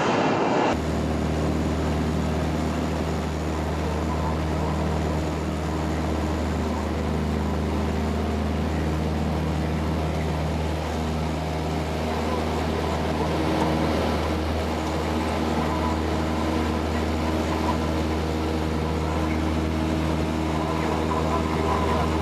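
Cessna 172's piston engine running at a steady drone, starting abruptly less than a second in.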